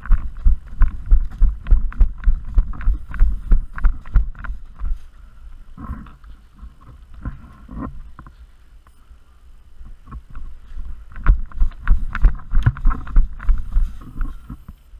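Footsteps and gear jostling of a player walking over the field, a run of dull thumps about two or three a second, pausing for several seconds mid-way and then starting again.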